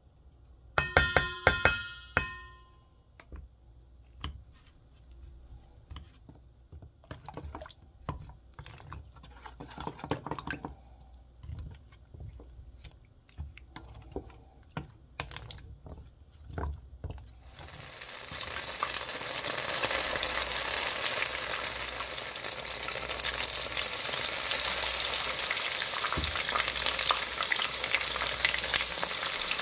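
A few taps on a stainless steel bowl set it ringing briefly, then come light scraping and clicking as a spoon mixes batter in the bowl. From a little past halfway, battered Korean angelica-tree shoots (dureup) sizzle loudly and steadily as they deep-fry in hot oil in a frying pan.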